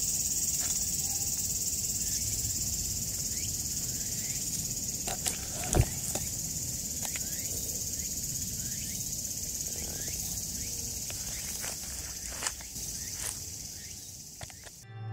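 Steady high-pitched chorus of insects, fading gradually, with scattered clicks and rustles and one louder thump about six seconds in.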